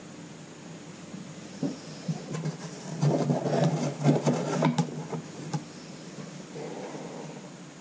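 Sports cards being handled and sorted by hand: a run of quick rubbing and clicking from about a second and a half in to about five and a half seconds in, densest in the middle, over a steady low hiss.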